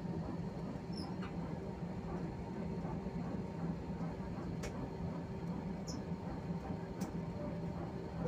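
Steady cabin noise of an airliner taxiing: the low hum of the jet engines and airframe heard inside the cabin, with a couple of faint high squeaks and light clicks.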